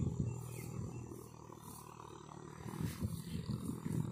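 Wind buffeting the microphone: a low, uneven rumble with gusty thuds that bunch up near the end.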